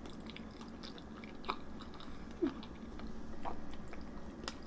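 Close-up chewing of a mouthful of apple pie: soft mouth sounds with a few faint, scattered clicks.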